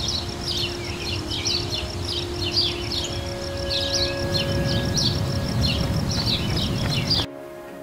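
Outdoor ambience of many small birds chirping over a steady low rumble, which cuts off suddenly near the end.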